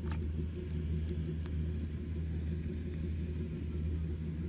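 A steady low rumble, with a few faint sharp crackles from a small wood fire at the start and about a second and a half in.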